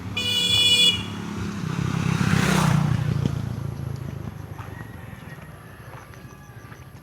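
A vehicle horn beeps once briefly, then a motor vehicle passes close by, loudest about two and a half seconds in and fading away.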